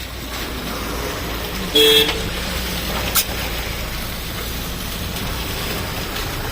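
A vehicle horn toots once, briefly, about two seconds in, over a steady low rumble of road traffic. A sharp click follows about a second later.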